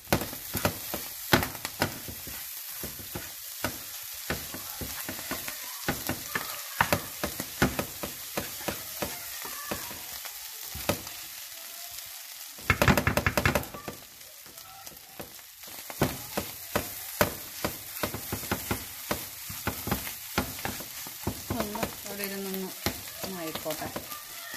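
Clam meat frying in oil in a non-stick pan, sizzling steadily, while a wooden spatula scrapes and taps against the pan as it is stirred. A short burst of faster, louder scraping comes about halfway through.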